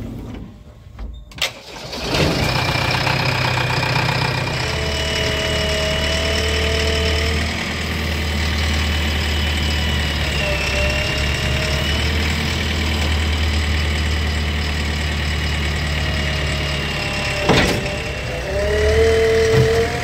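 JCB 3DX backhoe loader's diesel engine starting about two seconds in and then running steadily, with a whine that shifts in pitch as the hydraulics work the backhoe arm. A sharp knock near the end.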